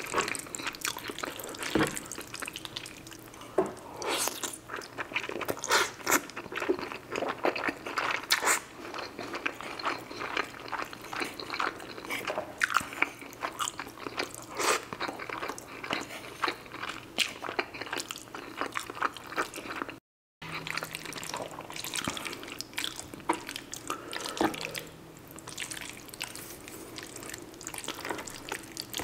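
Eating sounds of creamy fettuccine Alfredo: a steady run of wet chewing, smacking and squelching mouth noises, with a fork and spoon working through the pasta. The sound cuts out for a moment about two-thirds of the way through.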